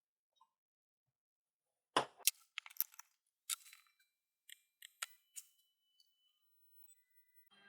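Metal hand tools and small printer parts clicking and clanking: an irregular run of sharp taps, a few of them ringing briefly, during work on the printer's limit switch and frame hardware.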